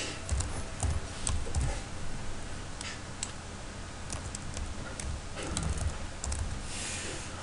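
Computer keyboard typing: irregular key clicks, a few in quick succession, then pauses.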